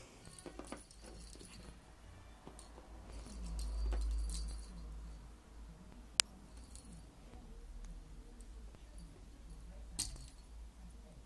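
Light metallic jingling and clinks come and go as a cat bats and wrestles a ball-on-string toy. There is a sharp click about six seconds in and another near ten seconds.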